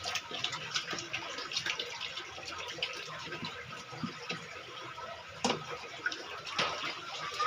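Water running and splashing during a bath, with scattered small splashes and drips and two sharper knocks in the second half.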